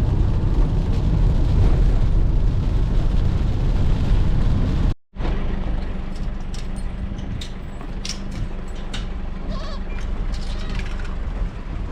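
Goats bleating over a heavy, steady rumble, with a sudden cut about five seconds in; the bleats are faint, coming near the end.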